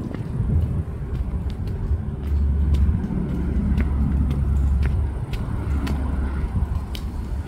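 A steady low street rumble, heaviest from about two to seven seconds in, with scattered faint clicks over it.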